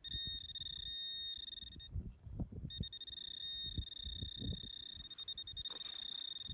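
Handheld metal-detecting pinpointer probed into a dig hole, giving a steady high-pitched electronic tone that drops out briefly about two seconds in and then resumes: the probe is sounding on a metal target in the soil. Soft thuds and scrapes of the probe and gloved hand working the dirt underneath.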